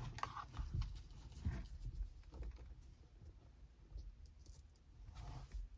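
Handling noises as the straps and bracket of a baby car-monitor camera are fastened around a car seat headrest: scattered light clicks, knocks and soft thumps, busiest in the first two seconds, with a short rustle near the end.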